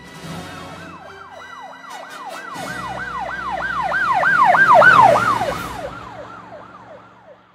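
Emergency-vehicle siren in a fast yelp, about three rise-and-fall cycles a second. It grows louder to a peak about five seconds in, then fades away as it passes.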